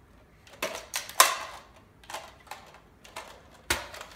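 Plastic clacks and clicks of a Nerf blaster being worked: a run of about seven sharp clicks at uneven spacing, the loudest about a second in.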